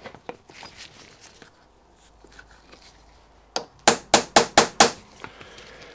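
Small hammer tapping a pin punch to cut a bolt hole in steam jointing paper laid over an engine's cylinder block: one sharp tap, then a quick run of five taps, about four a second.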